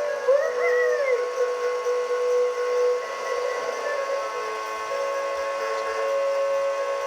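Electronic whistle-like sound effect: sustained steady tones that step between a few pitches, with a whistle glide that rises and falls about half a second in and again at the very end.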